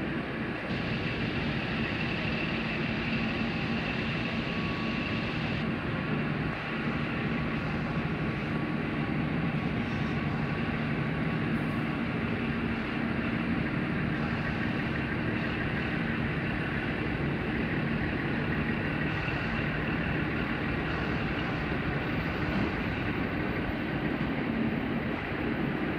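NSW 44 class diesel locomotive with its ALCO 251 V12 engine idling at a standstill: a steady engine hum that holds level throughout, with a faint higher steady tone over it.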